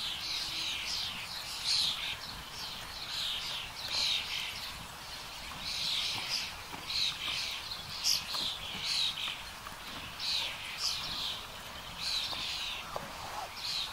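Woodland birds singing, a continuous run of quick high chirping phrases made of short falling notes, several a second.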